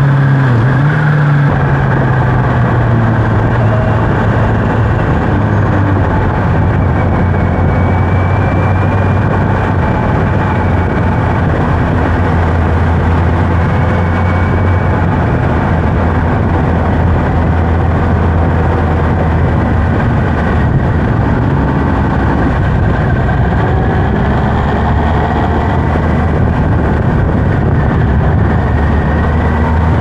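Kawasaki Z H2's supercharged inline-four engine running at low, steady revs while riding, with wind noise on the microphone. Its note drops a little about a second in, then holds steady.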